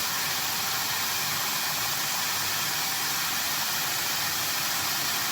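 Aluminum flexible duct machine running: a steady, even hiss of machine noise with no rhythm and no changes.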